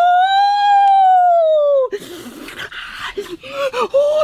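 A long, high vocal whine that rises and falls in pitch over about two seconds and stops suddenly, followed by shorter whimpers among crackling, rustling sounds.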